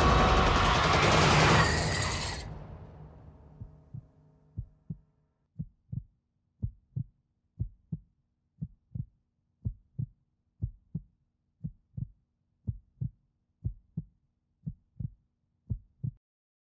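A heartbeat sound effect, a slow, steady double thump (lub-dub) about once a second. It comes in as the loud trailer music dies away over the first few seconds.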